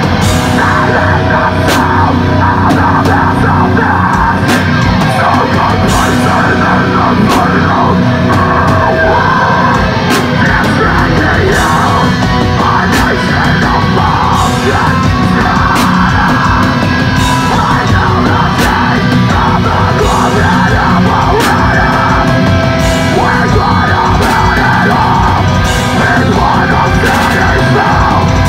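Deathcore band playing live, loud and steady: heavily distorted guitars and pounding drums with crashing cymbals, under harsh screamed vocals. Heard close up through a phone's microphone.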